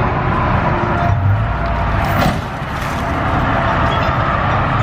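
A tow truck's winch and chain right a wrecked Ford Explorer SUV onto its wheels over a steady low engine rumble, with a single sharp thud a little over two seconds in as the vehicle comes down.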